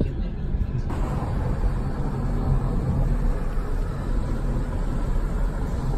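Steady wind and road noise from a moving car, mostly a low rumble with wind flutter on the microphone. It grows fuller about a second in and then holds steady.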